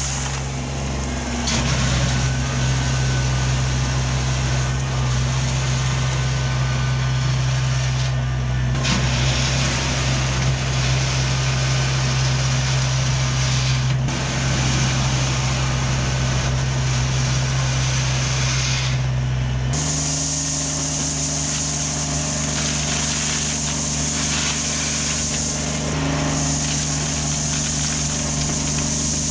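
Diesel engine of a compact earthmoving machine running at a steady speed. Its note shifts suddenly about twenty seconds in.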